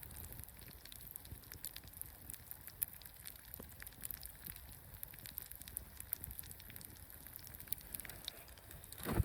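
Campfire crackling: scattered small pops and snaps over a low steady rumble. A short, louder rush or thump comes just before the end.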